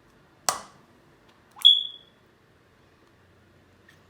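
Kitchen utensils clinking: a sharp click, then about a second later a short, high-pitched ping that rings briefly.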